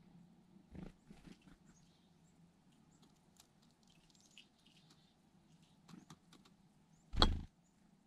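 Black-capped chickadee at a teacup of sunflower seeds: light taps and rustles of beak and seeds, with faint high chirps. One much louder brief whoosh-thump near the end as the bird flies off.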